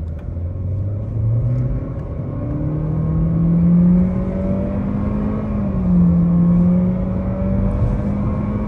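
Honda Civic RS's 1.5-litre turbo four-cylinder under full-throttle acceleration, heard from inside the cabin. The engine note climbs over the first few seconds, then holds high with a short dip about halfway through.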